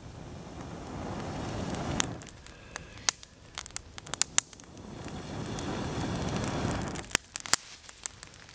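Campfire of damp firewood crackling, with sharp pops scattered throughout. Twice a longer rushing noise swells up and cuts off, about a second in and again about halfway through.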